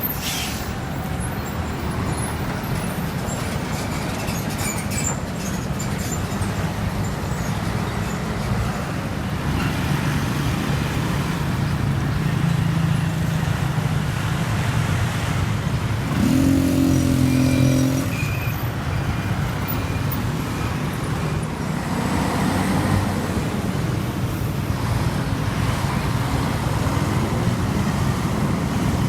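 Road traffic with heavy trucks' engines running steadily, and a louder pitched sound with several tones for about two seconds midway.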